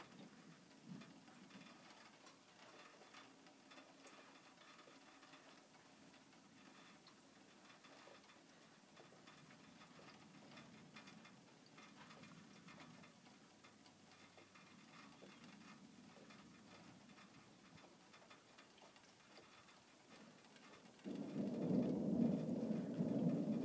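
Faint open-air background with a few light ticks. About 21 seconds in, a sudden low rushing noise cuts in much louder and keeps on: storm wind gusting across the microphone.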